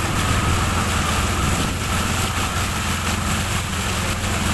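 Auto-rickshaw engine running steadily as it drives through floodwater covering the road, with water splashing and rushing around the wheels.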